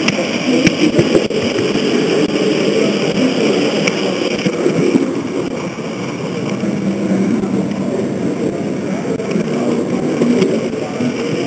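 H0-scale model train running along the track, heard up close from a camera riding on it: a steady drone of motor and gearing, with a few sharp clicks in the first four seconds. A thin high whine eases about four and a half seconds in.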